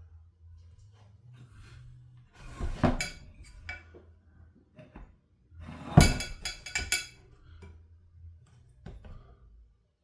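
Metal tools and engine parts clinking and knocking on a workbench as a Stihl 064 chainsaw's crankcase is taken apart, with the loudest clusters of clinks about 3 seconds and 6 seconds in, over a low steady hum.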